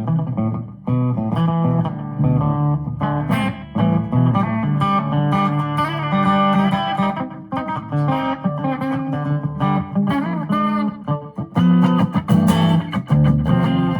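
Electric guitar played with a clean, country twang tone: single plucked notes and short runs over a lower accompaniment, with many quick note attacks.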